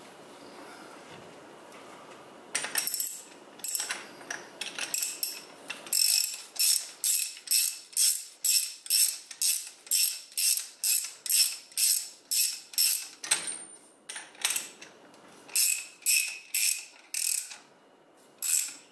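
Ratchet wrench clicking in quick back-and-forth strokes, about two a second, as it turns the top cap down onto a motorcycle fork tube. It starts a couple of seconds in and pauses briefly near the end before a few more strokes.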